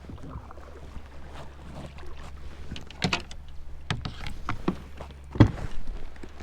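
Several sharp knocks and clunks on a kayak, the loudest about five and a half seconds in, over a steady low rumble.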